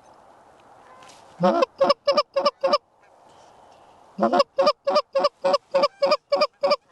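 Goose call blown by a hunter to bring in Canada geese: loud, quick, evenly spaced honks and clucks. Five come about a second and a half in, then after a short gap a steady run of about four a second. A low steady rush sits underneath between the calls.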